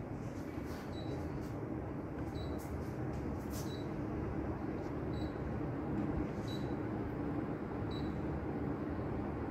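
Kenwood 1238S inverter split air conditioner's indoor unit giving short, high single beeps about every second and a half, six in all, each one answering a press of the remote's Health button. Eight such presses reset the unit so it can be paired with the AC Freedom app.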